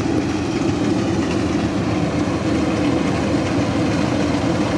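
Rice combine harvester's engine running steadily as the machine works through the paddy, a constant drone without change in pitch.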